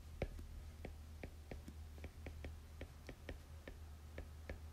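Stylus tip tapping and clicking on a tablet screen while handwriting, a few irregular light clicks a second, over a faint steady low hum.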